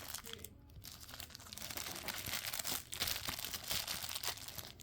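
Plastic packaging crinkling and rustling as it is handled and pulled open, a dense crackle of many small clicks with a brief lull under a second in.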